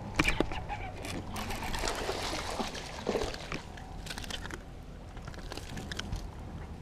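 Hooked largemouth bass thrashing and splashing at the water's surface as it is reeled in and swung into the boat. The splashing is heaviest between about one and a half and four and a half seconds in, then stops suddenly. A few sharp clicks come near the start.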